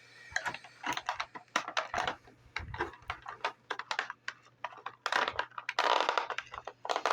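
Action-figure packaging being handled and pulled apart: irregular plastic crackling, clicking and crinkling, thicker and louder from about five seconds in.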